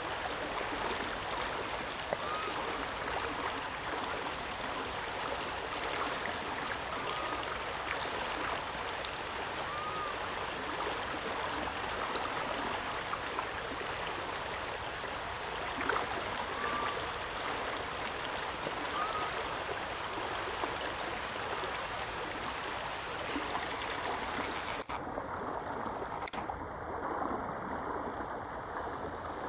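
Steady rushing of flowing water, with a few short, faint chirps every couple of seconds; the rush turns duller near the end.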